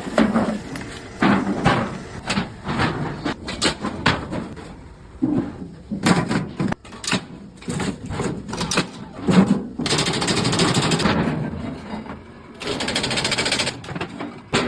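Metal oil tins being worked in a workshop: irregular clanks and knocks of tin sheet, with two stretches of steady machine noise, one about ten seconds in and a shorter one about thirteen seconds in.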